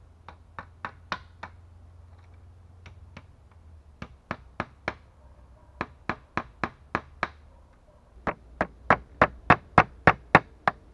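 Hammer driving nails into green bamboo poles on a branch-framed door: sharp knocks, scattered at first, then from about eight seconds in a steady, louder run of about three blows a second.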